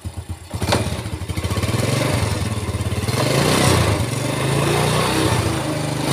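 Yamaha four-stroke single-cylinder underbone motorcycle engine running in gear: a click about half a second in, then it is revved up and held at higher revs for several seconds. It runs smooth in gear, the rough noise cured by replacing the crushed one-way clutch cage.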